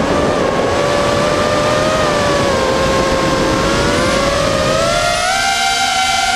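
Electric motors and propellers of an LS210 FPV racing quadcopter, heard through its onboard camera: a steady whine over a rush of wind. The pitch sags slightly, then climbs from about five seconds in as the throttle is opened.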